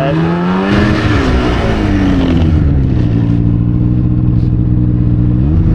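Polaris RMK 700 snowmobile's two-stroke engine under throttle in deep powder. It revs up at first, drops in pitch over a couple of seconds as the throttle eases, holds a steady pitch, then gives a quick rise near the end.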